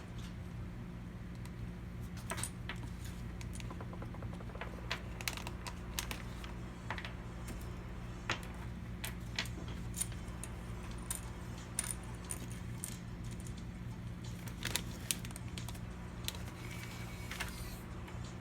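Scattered light clicks and clinks of small hard parts being handled, over a steady low hum.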